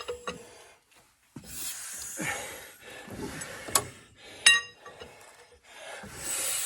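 Irregular metal clicks, knocks and rubbing with short stretches of hiss, and one sharp ringing metallic clink about four and a half seconds in, from hand work on a Caterpillar Sixty crawler tractor's engine during a cold-start attempt.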